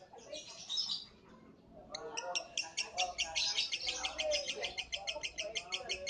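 Lovebird singing. Scattered high chirps give way, about two seconds in, to a fast, even chatter of about eight chirps a second that runs on without a break.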